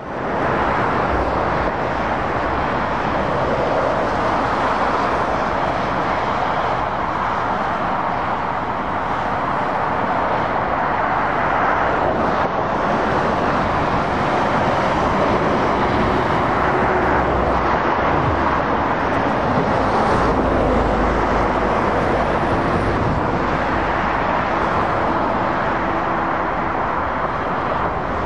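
Steady road traffic noise from a dual carriageway: the continuous rush of tyres and engines of passing lorries and cars, with a deeper rumble swelling about twenty seconds in as a heavy truck passes close.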